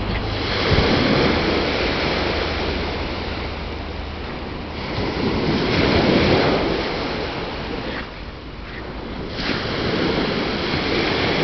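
Rushing wind and surf, swelling and easing a few times, with wind buffeting the microphone.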